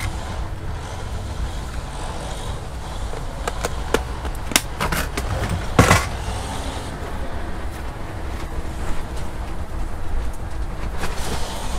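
Scattered clicks and knocks of parts and tools being handled, the loudest knock about six seconds in, over a steady low rumble.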